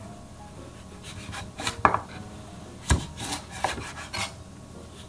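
Kitchen knife cutting through a kabocha sweet pumpkin's hard green rind and down onto a wooden cutting board. About six sharp knocks come from about a second and a half in, as the blade strikes the board.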